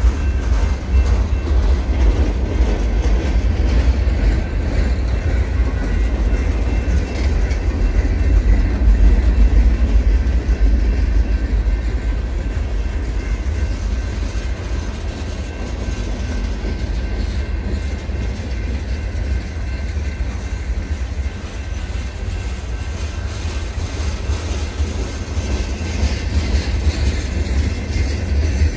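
Freight cars of a long mixed freight train rolling past: a steady deep rumble and clatter of wheels on the rails, a little louder in the first half.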